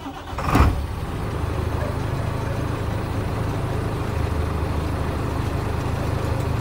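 Chenglong truck's diesel engine starting up cold and catching within the first second, then idling steadily at about 500 rpm to build up air-brake pressure.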